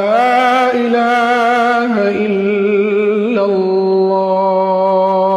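A man's voice chanting the closing phrases of the adhan (Islamic call to prayer) in a long, ornamented melismatic line. The pitch wavers and shifts about two and three seconds in, then settles into a long held note.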